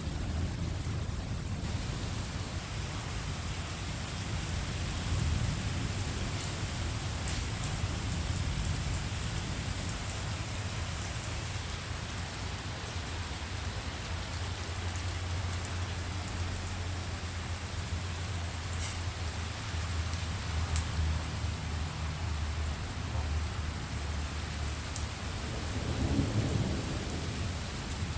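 Steady heavy rain with thunder rumbling low and long beneath it, swelling louder once near the end.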